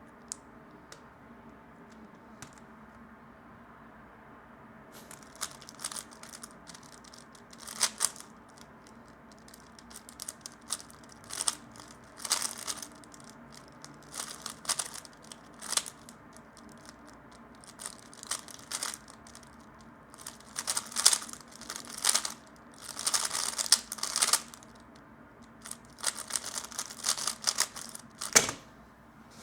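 A 3x3 Rubik's speedcube being turned fast in bursts of plastic clicking and clacking during a solve. The turning starts about five seconds in and stops and starts between bursts.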